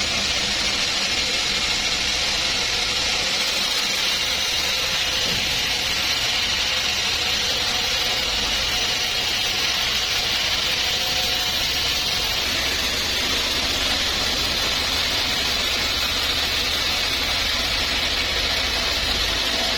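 Sawmill machinery running steadily: a constant mechanical noise with a strong high hiss and a low hum under it.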